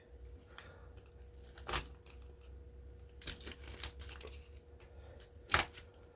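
Hand-working small scrap of plastic and copper wire with pliers and cutters: scattered clicks, a crinkling, crackling rustle about three seconds in, and one sharp snap near the end.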